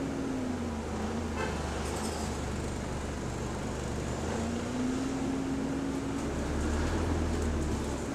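ADL Enviro400 MMC double-decker bus running on the move, heard from inside the upper deck: a steady low engine drone with a whine from its hydraulic cooling fan. The whine drops about a second in, climbs again near halfway and falls away at the end.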